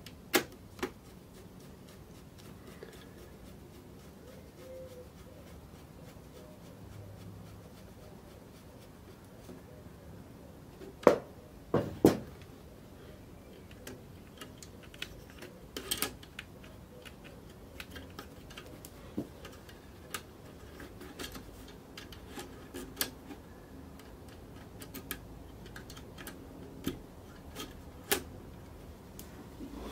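Scattered sharp clicks, taps and knocks of a screwdriver and fingers working small metal and plastic parts on the end plate of a copier fuser unit, with a few louder knocks a little before the middle.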